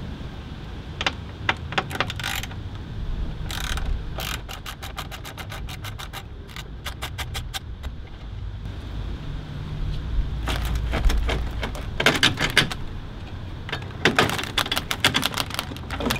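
Bursts of rapid clicking and rattling from hand tools and the plastic auxiliary electric fan assembly of a BMW E39 as it is unbolted and worked loose from its mounts.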